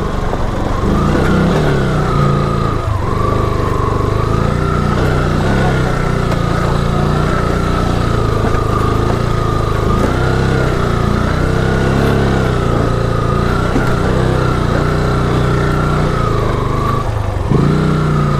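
Motorcycle engine pulling the bike up a steep, loose, rocky trail, its note rising and falling as the throttle is worked, with a high whine that wavers along with it.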